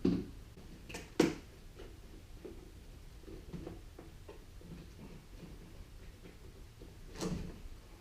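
Sharp plastic clicks and knocks from a car door's interior trim panel being pried loose with a plastic trim removal tool, with two loud clicks about a second in and another near the end, and softer taps and rattles between.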